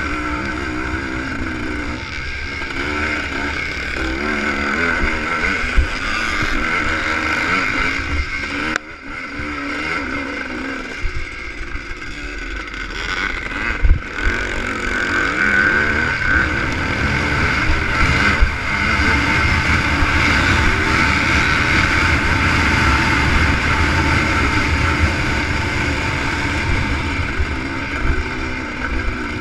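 Two-stroke ČZ motocross bike racing, heard from on board: the engine revs up and down through the gears. The throttle is shut off sharply for a moment about nine seconds in, and there is a sharp knock about fourteen seconds in.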